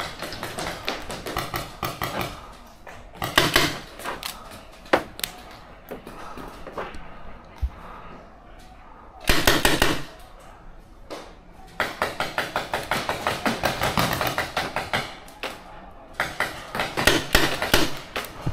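Paintball marker firing in rapid strings of shots, several bursts of even, fast pops at about eight to ten a second. The longest string comes about twelve seconds in and runs for roughly three seconds. A single loud rush of noise comes near ten seconds in.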